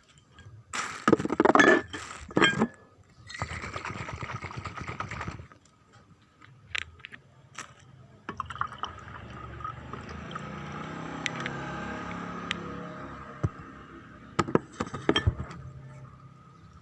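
Water being poured into a container, with handling noises and a few sharp clinks.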